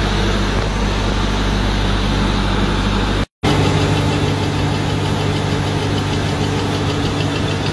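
A 15 kW generator engine running on biogas, with the belt-driven twin-cylinder piston compressor that runs alongside it, makes a steady machine hum. The sound breaks off briefly about three seconds in and comes back as a steady hum of a somewhat higher pitch.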